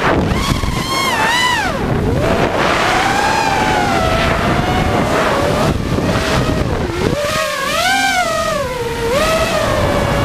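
ImpulseRC Reverb FPV quadcopter's brushless motors whining, the pitch swinging up and down again and again with the throttle, over wind noise on the onboard camera's microphone.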